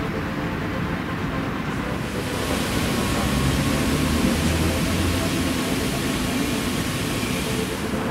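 Low rumble of city traffic; about two seconds in, the steady hiss of a fountain's water jets spraying joins it and drops away just before the end.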